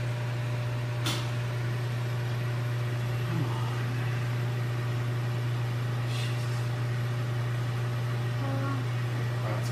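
Steady low mechanical hum in a kitchen, with one sharp click about a second in and a fainter one about six seconds in.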